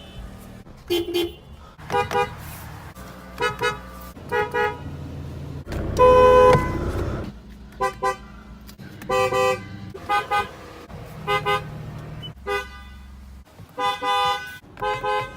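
A run of car horns from different cars, mostly quick double taps of short dual-tone toots, with one longer, louder honk about six seconds in. A low hum runs underneath.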